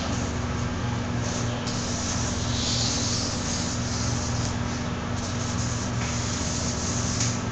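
Steady background hiss over a constant low hum, with no distinct events.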